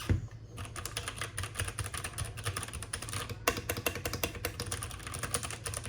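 Keychron K8 mechanical keyboard being typed on quickly, a dense run of key clicks and clacks starting about half a second in.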